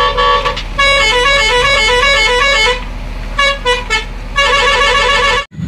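Multi-tone musical horn, telolet-style, playing a tune of quick stepping notes in three phrases over a low steady hum. It cuts off abruptly near the end.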